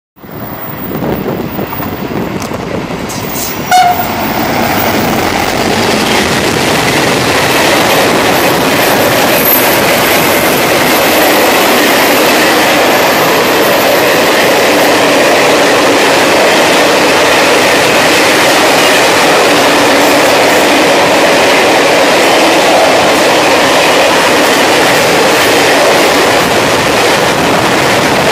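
Container freight train hauled by a Renfe class 335 diesel-electric locomotive passing close by, with a brief horn toot about four seconds in. After that comes the steady loud rumble and clatter of the container wagons rolling past.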